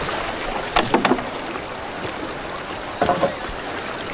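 Steady rush of a swollen flood river, with wind on the microphone. Two short louder sounds break through, about a second in and about three seconds in.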